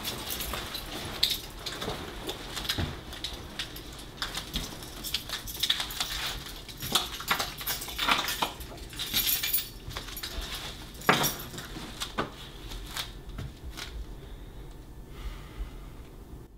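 Handling sounds of a leather jacket being taken off and hung on a coat hook: rustling and clicking with keys jangling and a few sharp knocks, the loudest about a second in and about eleven seconds in. The sounds thin out near the end.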